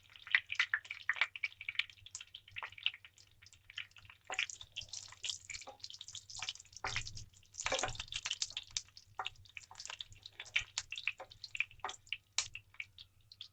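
Whole dried red chillies frying in a little hot refined oil in a pan: irregular crackling and spitting pops, with two denser bursts of sizzle about four and a half and seven and a half seconds in.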